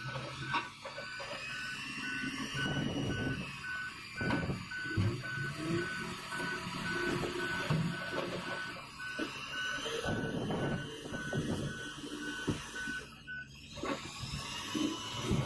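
Reversing alarm on heavy equipment beeping rapidly and evenly at one steady pitch, then cutting off near the end, over a running engine with scattered knocks and clanks.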